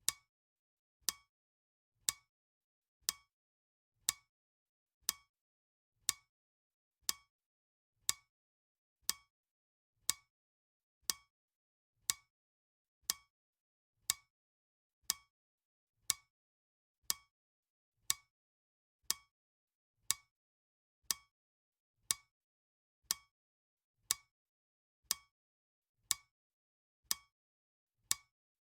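Clock ticking sound effect of a countdown timer: one sharp tick every second, each alike, with silence between.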